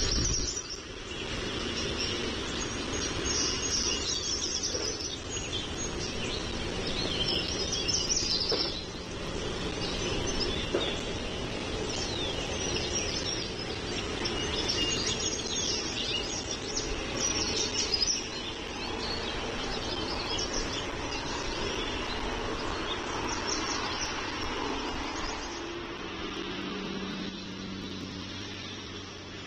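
Small birds chirping and singing over a steady low background hum. Near the end a low engine-like drone comes in.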